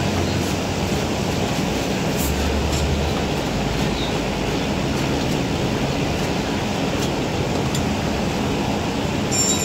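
Steady rushing hiss of a cheung fun (rice noodle roll) steamer running, with a few faint clinks of a metal ladle on the steel steaming tray.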